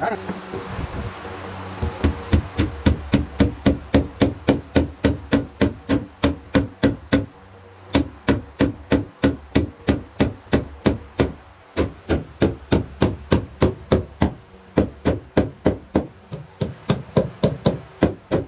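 Hammer blows striking wood at a steady pace of about three a second, starting about two seconds in and pausing briefly a few times.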